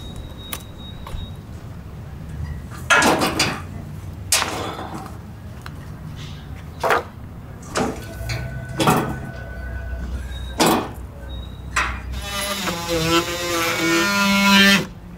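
Irregular knocks and clunks of hand work on a wooden camper roof repair. Near the end a power tool whirs for about three seconds, its pitch wavering, then stops.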